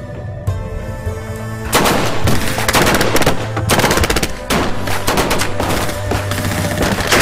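Music with held tones; about two seconds in, long bursts of rapid automatic submachine-gun fire start and carry on, with a low music drone under them.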